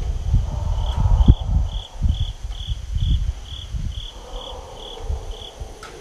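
An insect chirping in an even rhythm, about two short chirps a second. Underneath is an uneven low rumble with thumps, loudest in the first half.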